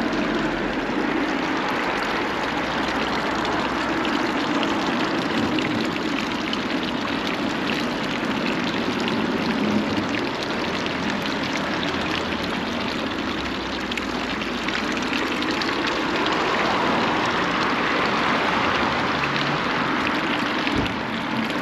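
Water from the spouts of a stone fountain splashing steadily into its basin. It grows louder for a few seconds about three-quarters of the way through.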